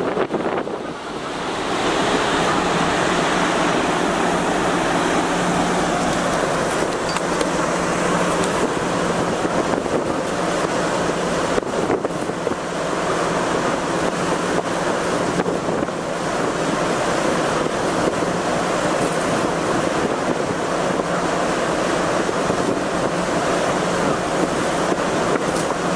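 Steady rushing of wind across the microphone on a ferry's open top deck under way, over a steady low hum from the ship.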